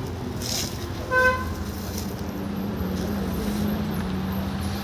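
A single short vehicle horn toot about a second in, over a steady low rumble of engine and road noise.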